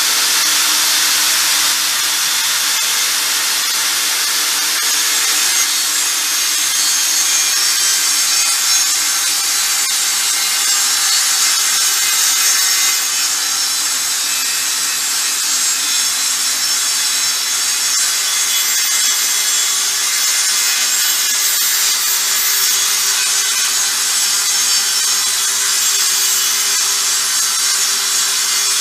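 Festool AT 65 plunge-cut track saw running at full speed and ripping through a wooden board as it is pushed along its guide rail: one long, steady cut.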